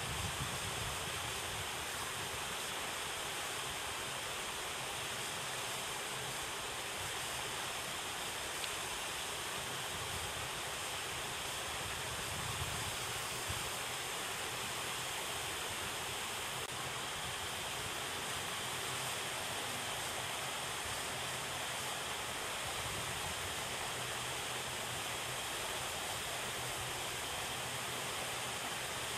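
Steady rush of water pouring over a small stone spillway into the pond.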